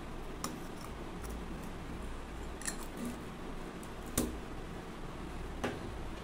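Small stainless steel containers and lids clinking as they are handled and stacked: a handful of short sharp metallic clicks, the loudest about four seconds in, over a steady low background hum.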